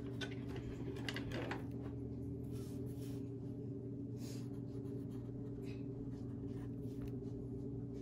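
Pencil scratching on paper in short, irregular sketching strokes, over a steady low hum.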